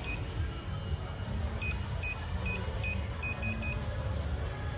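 Short high beeps from a DA188 door access keypad reader while it is being programmed: a few at the start, then seven more about a second and a half in, the last three coming faster. A steady low rumble runs underneath.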